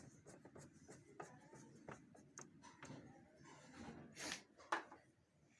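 Faint handling noises of small copier parts: scattered light clicks and rubbing, with a short louder scrape about four seconds in and a click just after.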